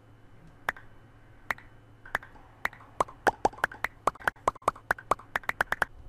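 Sharp wooden clacks of plywood pieces set down onto stacks one at a time. They start about a second apart and quicken to several a second in the second half.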